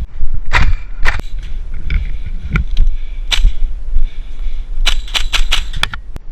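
Airsoft guns firing during a game: scattered single sharp shots, then a quick string of shots about five seconds in.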